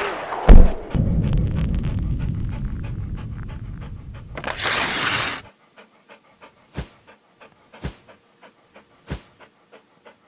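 Intro sound effects for a cartoon dog. A loud hit comes about half a second in, then rapid dog panting over a low rumble, and a whoosh about five seconds in. After that there are only faint ticks and three soft low thumps about a second apart.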